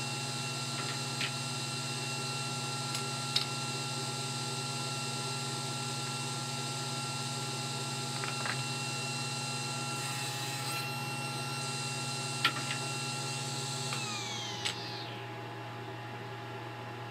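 Table saw and shop dust extraction running steadily, with a few light knocks of wood pieces on the saw table. About fourteen seconds in, one motor is switched off and winds down with a falling pitch, leaving a softer steady whoosh of air.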